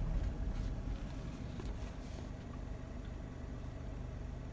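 A car's engine running at idle, a steady low rumble heard from inside the cabin, with a few faint clicks in the first two seconds.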